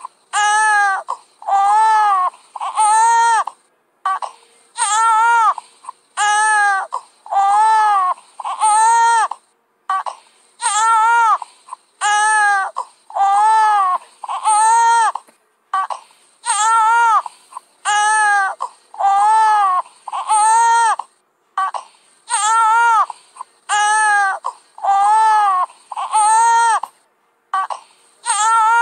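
Baby crying hard in repeated arching wails, about one a second, in runs of four or five with a short breath between runs.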